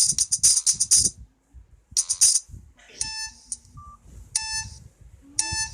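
Samsung SGH-B320 mobile phone playing ringtones through its small speaker. A fast, jingling ringtone stops about a second in, a short snatch of it follows, and near the middle a new ringtone of buzzy beeps starts, repeating a little less than once a second.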